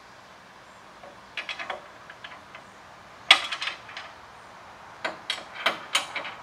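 Metal clicks, clanks and rattles from the steel hitch fittings of a hitch-mounted cargo cart being worked by hand as the cart is secured to the truck. There is a cluster of clicks about a second and a half in, and a sharp clank with rattling after it at about three seconds. More clicks come near the end.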